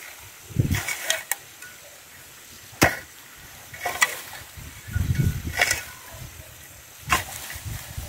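A hoe chopping and raking through a pile of pulled weeds and grass: about six irregular strikes of the blade on soil and stems, the sharpest just before halfway, with rustling and scraping as the weeds are dragged.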